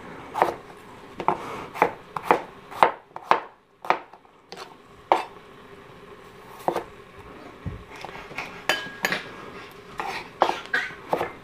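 Kitchen knife dicing potatoes on a cutting board: irregular knocks of the blade striking the board, one or two a second with short pauses.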